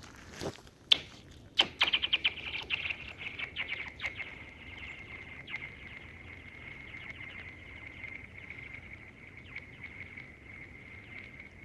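A flat rock thrown onto thin, newly frozen lake ice strikes it about a second in and bounces a few times. It then skids across the ice, setting off a rapid run of high, chirping pings that settle into a steady high ringing tone as it keeps sliding.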